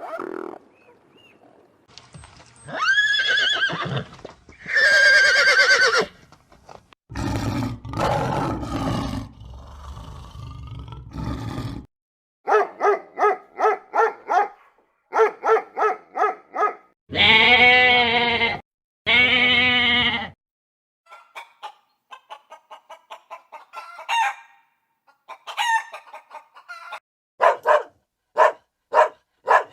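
A run of farm-animal calls, chiefly chickens: long rising-and-falling crows and quick runs of short clucks. A rougher, low, noisy call fills a few seconds in the middle.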